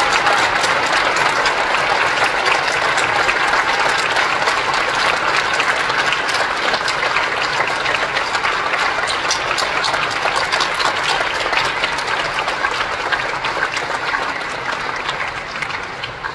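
Audience applauding: many hands clapping in a dense, steady stream that tapers off near the end.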